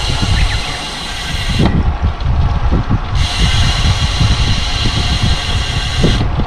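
Wind buffeting the microphone of a camera riding along on a bicycle, a loud uneven low rumble, with a steady high hiss over it that stops for about a second and a half near two seconds in and cuts off again near the end.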